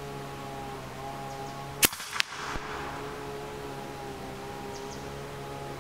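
EDgun Leshiy 2 .22 PCP air rifle firing one shot, a sharp crack about two seconds in, followed a fraction of a second later by a second, fainter crack. A steady low hum runs underneath.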